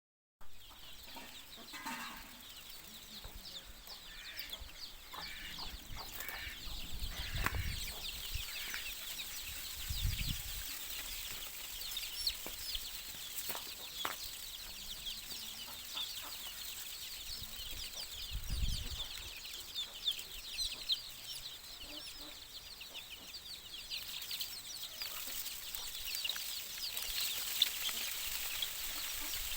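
A large brood of chicks peeping steadily as many overlapping high chirps, with a few lower calls in the first several seconds and occasional dull thumps.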